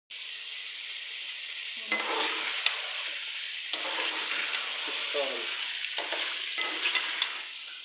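Food frying in hot oil in a pan with a steady sizzle, stirred with a utensil. From about two seconds in, the stirring scrapes and clicks against the pan.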